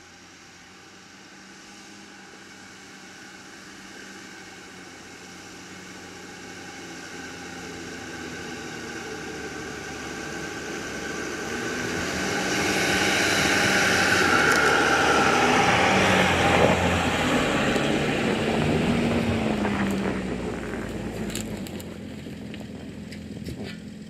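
Mercedes-Benz Sprinter 4x4 van driving past on a snow-covered track: engine and tyre noise build steadily as it approaches, are loudest a little past the middle, then fade as it moves away.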